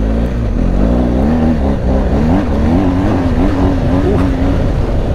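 2022 BMW R 1250 GS Adventure's 1254 cc boxer-twin engine running while riding, its pitch rising and falling several times as the throttle is opened and closed.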